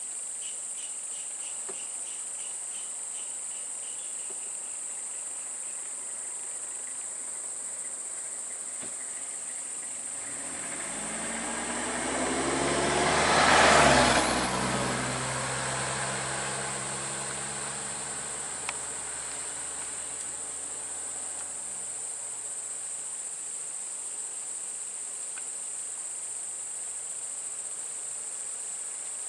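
Steady high-pitched insect chorus, with a motor vehicle passing close by about halfway through. Its engine and tyre noise swells to a peak and then fades away, the engine note falling in pitch as it goes.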